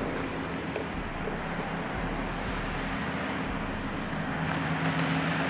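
Car on the move: a steady wash of road and wind noise under a low engine hum whose pitch shifts slightly.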